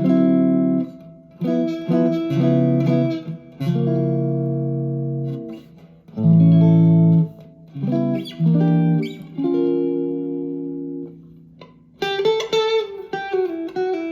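Harley Benton TE-62CC Telecaster-style electric guitar played through an amp on its neck pickup. It rings out held chords and short chord stabs, then moves into a single-note run near the end.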